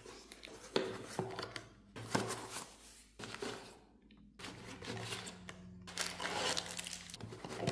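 Cardboard packaging being handled as a box is opened: its flaps are lifted and folded back, giving a series of short rustling and scraping sounds.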